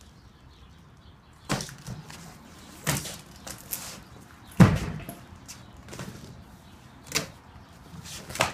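Large cardboard shipping box being handled and pulled open: a handful of separate scrapes and knocks, the loudest a dull thud about halfway through.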